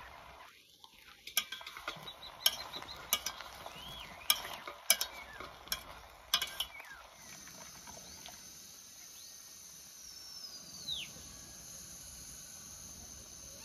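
Diced vegetables being tossed and mixed by hand in an enamel pot, the pieces knocking against the pot in a run of sharp clicks for about six seconds. After that only a faint steady outdoor background, with one falling whistle near the end.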